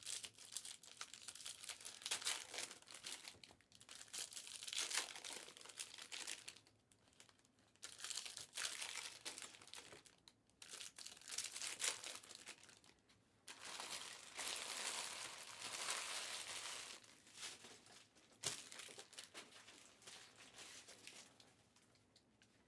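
Trading-card pack wrappers being crinkled and torn open by hand, in a series of crackling bursts a second or a few seconds long with short pauses between.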